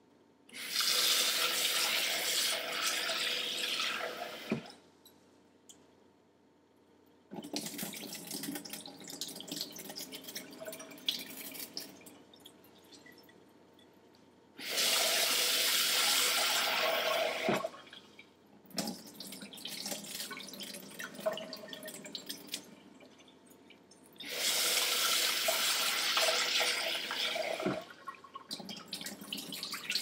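Kitchen faucet running into a glass bowl of white rice three times, each fill lasting a few seconds, with quieter sloshing and pouring in between as the rice is swished by hand and the starchy water is tipped out into a stainless-steel sink. This is rice being rinsed to wash off its starch.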